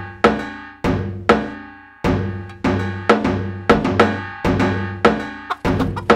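Rhythmic percussion music from a cartoon soundtrack: drum hits about two a second, each leaving ringing pitched tones that fade before the next.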